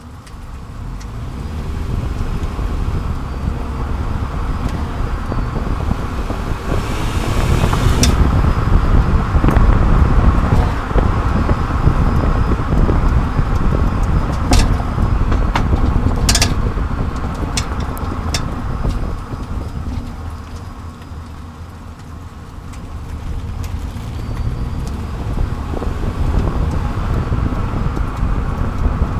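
Road, tyre and wind noise under a 30-series Toyota Prius on the move, swelling and easing as the car speeds up and slows. Several sharp clicks stand out in the middle stretch, on a car with an unidentified noise from the left rear.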